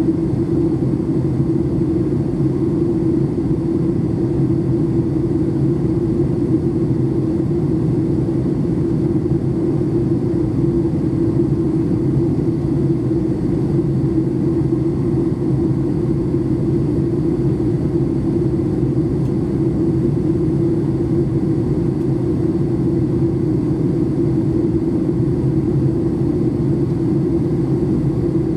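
Steady low drone of a Boeing 737 MAX 8's CFM LEAP-1B engines and airflow heard inside the passenger cabin, with a humming band in the middle of the drone and no changes.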